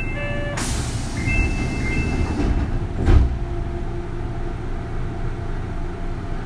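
Inside a Kintetsu 3200 series train car: electronic chime tones and a burst of air hiss, then a single heavy thump about three seconds in, over the car's steady low rumble. There is no motor whine, so the train is not accelerating.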